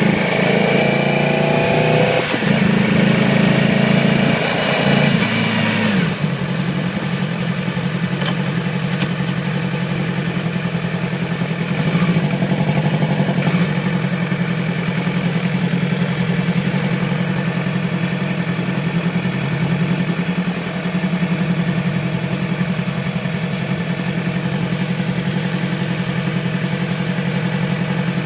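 2008 Yamaha YZF-R6 inline-four engine revved in a few throttle blips, then settling about six seconds in to a steady idle. It is running with a cylinder misfire, caused by a faulty ignition coil.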